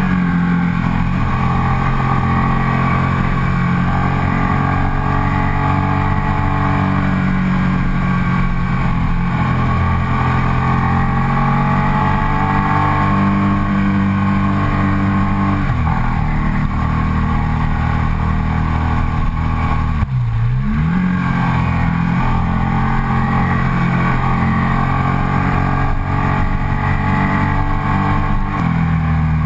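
Ducati SportClassic Sport 1000's air-cooled L-twin engine pulling uphill, heard onboard with wind rush. The engine note breaks briefly just past halfway, dips sharply and climbs back about two-thirds through, and shifts again near the end.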